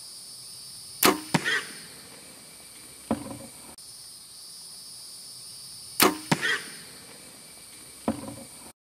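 A bow shot at feral hogs, heard twice: a sharp crack of the bowstring, the arrow striking a fraction of a second later, a short noisy burst from the hogs, and another knock about two seconds after. A steady high insect drone runs underneath.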